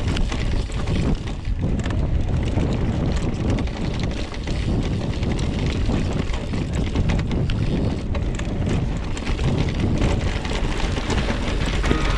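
Mountain bike riding down a rough trail: wind buffeting the microphone over steady tyre noise, with a constant chatter of small rattles and knocks from the bike.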